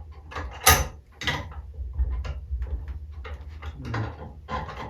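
Small metal engine parts being handled and fitted by hand: a string of clicks and knocks, the loudest a sharp knock about three quarters of a second in, over a steady low hum.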